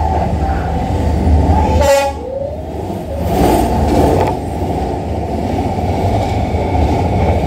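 A diesel train passing close along the street, with a heavy steady rumble and a short horn blast about two seconds in.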